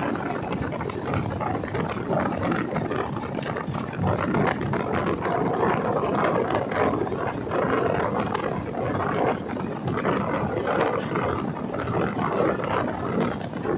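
Express train running at speed, heard from an open coach door: a steady rush and rumble of wheels on the rails and passing air, laced with many quick clicks.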